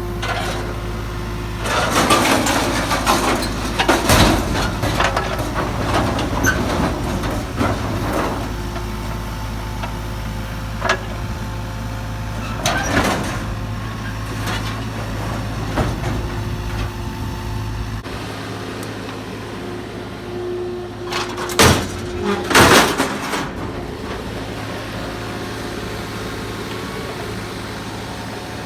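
Mini excavator's engine running while its bucket and thumb handle scrap metal, with loud metal clanks and crashes as pieces drop into a dump truck, loudest about two to four seconds in, near the middle, and about three quarters of the way through. The low engine rumble drops away about two-thirds through.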